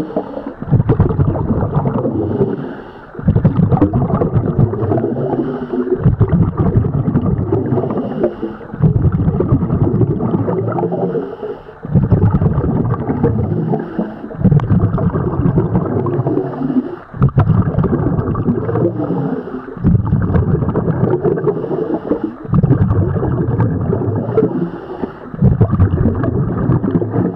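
Scuba diver breathing through a regulator, heard underwater: bursts of exhaled bubbles gurgle out in regular surges, one about every two and a half to three seconds, with short dips for each inhalation between them.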